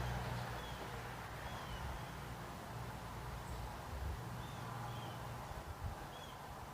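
Low, uneven rumbling drone heard from the sky, with a few faint high chirps of small birds scattered through it.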